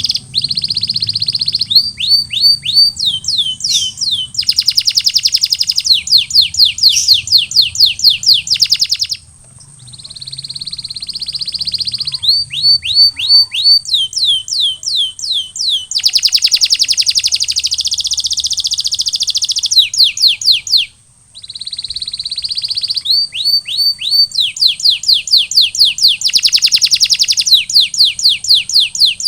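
Male canary singing in long phrases. Series of quick falling whistled notes, several a second, alternate with dense fast rolling trills, with short pauses about nine seconds in and again about twenty-one seconds in.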